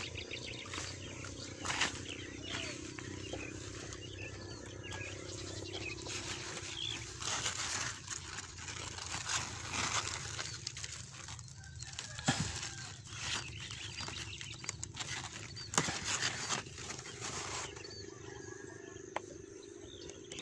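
Rustling of squash leaves and handling noise as a hand moves through the plants, with scattered short bird chirps.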